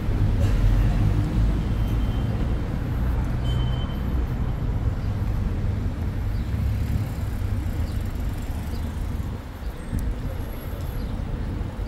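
Road traffic going by: a steady low rumble of cars and engines, loudest in the first couple of seconds and easing a little near the end.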